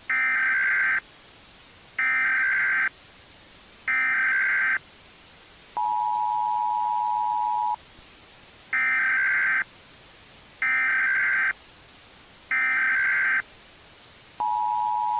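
Emergency Alert System tones: three short bursts of SAME header data, each about a second long with a pause between, then the steady two-tone attention signal for about two seconds. The sequence then repeats, with three more bursts and the two-tone starting again near the end.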